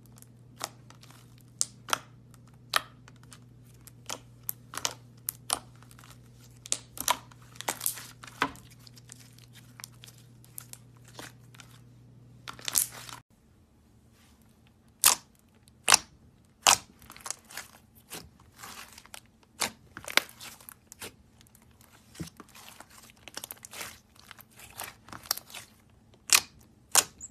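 Slime being pressed and squeezed by fingers, giving irregular sharp pops and crackles as trapped air bubbles burst. A faint low hum sits under the first half and cuts off about halfway through.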